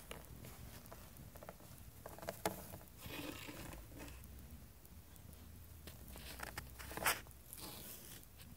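Tabby cat's fur rustling and scratching against the phone up close, with scattered soft clicks and a sharper tick twice, about two and a half and seven seconds in.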